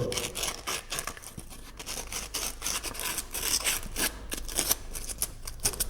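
Sandpaper rubbed by hand along the inside edge of a cutout in 4 mm plywood: quick, irregular scratchy strokes, smoothing off the burrs left by the saw cut.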